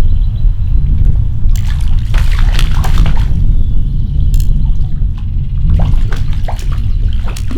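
Creek water sloshing and splashing close to the microphone, in two spells of splashes, over a steady low rumble.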